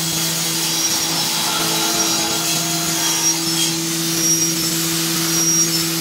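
Electric angle grinder with a sanding disc running at full speed, a steady whine with a hiss of abrasive on wood as it sands the edge of a round wooden base.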